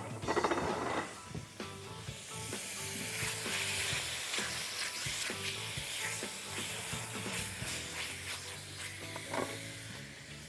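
Cubed raw chicken frying in hot oil in a pan, sizzling as it is stirred with a spatula, with a clatter in the first second as the pieces go in; the sizzle swells after about two seconds and eases toward the end.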